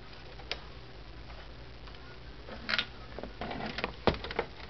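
Scattered clicks, knocks and rustling from cables and plastic connectors being handled at the back of a TV. The handling is busiest in the last second and a half, over a low steady hum.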